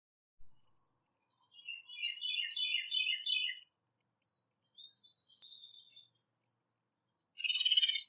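Songbirds chirping: a fast run of short chirps about two seconds in, then scattered higher whistled notes, and a dense burst of chirping near the end.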